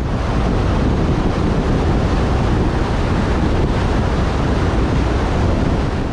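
Steady, loud rush of wind buffeting the microphone in a moving vehicle, mixed with road noise.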